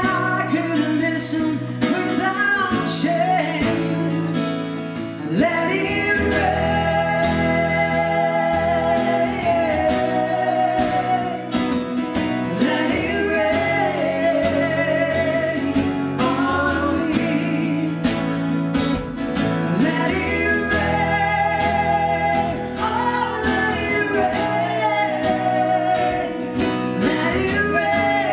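A woman singing live into a microphone while strumming an acoustic guitar, holding long notes with vibrato.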